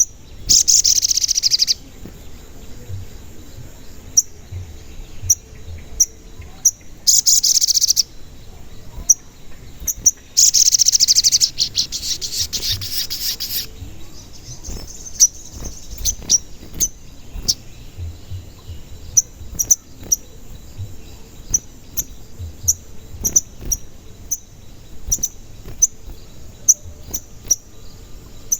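A sogon bird in full song: short, sharp, high 'cuit cuit' chirps repeated all the way through, broken by three long rapid trills, the last of which runs about three seconds.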